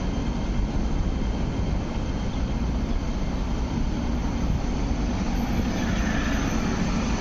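A two-car CRRC-built MTR Light Rail Phase 5 train rolling slowly past and away on its track: a steady rumble of wheels on rail and running gear.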